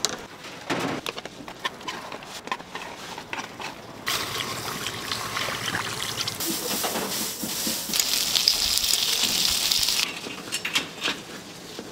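Clinks and taps of metal tongs and ladle on steel food trays. Then, about four seconds in, a steady splashing of liquid poured from a plastic bowl into a steel tteokbokki tray, which stops suddenly near the end. A few tong clicks follow.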